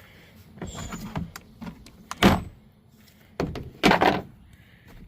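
Rustling and handling noise with loud knocks, one about two seconds in and a close pair near four seconds.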